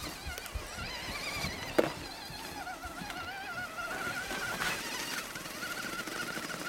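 Axial SCX10 RC crawler's 21-turn Traxxas brushed electric motor and gearbox whining as the truck pushes through snow, the pitch wavering with the throttle. One sharp click about two seconds in.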